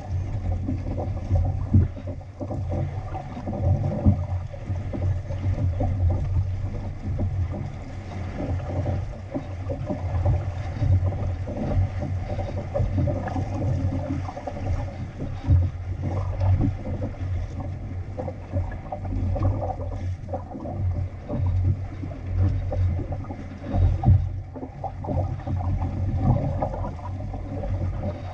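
Outrigger sailing canoe under way in a 10–15 knot breeze: water rushing and splashing along the hull, with gusty wind rumbling on the microphone. The level rises and falls unevenly with the waves and gusts.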